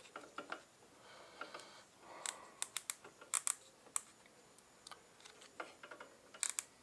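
Irregular small sharp clicks from an outside micrometer being closed on a turned steel crankshaft journal, its ratchet thimble clicking as it seats on the shaft to check the 10 mm diameter.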